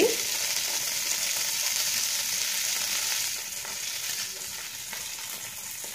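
Freshly washed coriander leaves sizzling as they hit hot oil in a frying pan: a steady hiss that eases off about three and a half seconds in.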